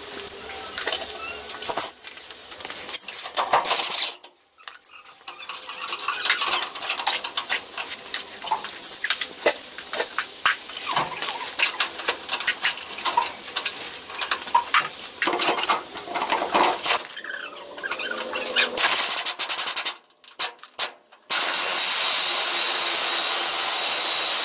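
Scattered clicks and knocks of hands and tools working on the underside of the truck. About three seconds before the end, a pneumatic air ratchet on an air hose runs steadily on a bumper bracket bolt, then stops.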